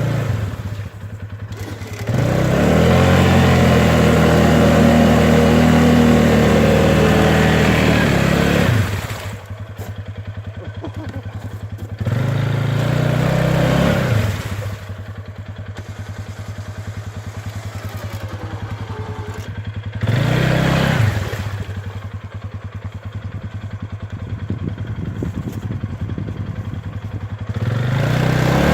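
ATV engine revving up hard in several bursts: a long one of about six seconds, then shorter ones, dropping back to idle between them.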